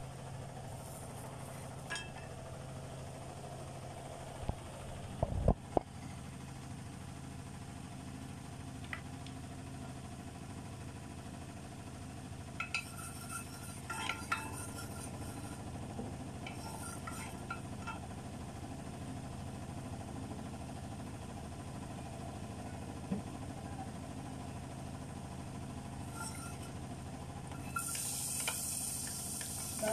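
Cooking in a pot over a steady low hum: a few loud knocks about five seconds in, light clinks and taps of a wooden spatula and oil bottle at the pot around the middle, then hot oil starts to sizzle near the end as food goes into the pot.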